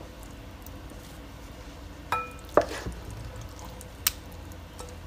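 Wooden spoon scooping cheesy vegetable pie from a cast iron skillet and knocking against a ceramic bowl while serving. Two sharp knocks come about two seconds in, the first leaving a brief ringing tone, and a lighter click follows near four seconds.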